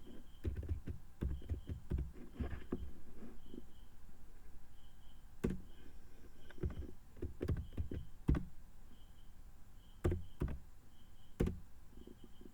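Typing: irregular taps on keys, a quick run in the first three seconds, then slower single, louder taps every second or two.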